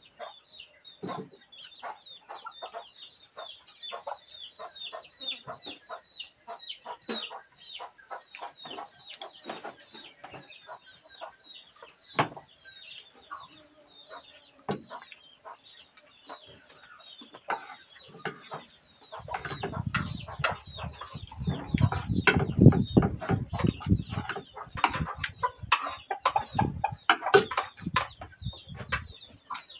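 Chickens clucking, with many short, high, falling calls in quick succession. About two-thirds of the way through, a louder low rumbling noise with knocks joins in.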